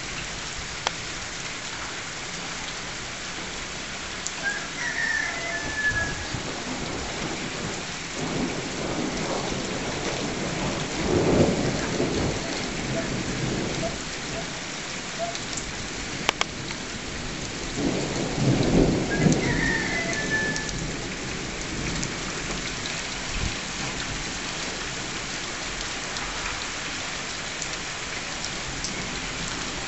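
Heavy rain falling steadily, with two rumbles of thunder swelling up, about 8 and 17 seconds in, each lasting a few seconds.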